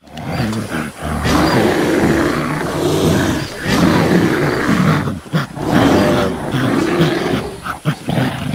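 Creature sound effect made from gorilla and black bear recordings: long, rough, loud animal calls that follow one another with only short breaks, about every second or two.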